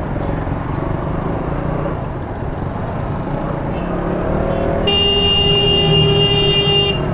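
KTM Duke motorcycle engine running at low speed in city traffic, with surrounding traffic noise. About five seconds in, a vehicle horn sounds one steady blast lasting about two seconds.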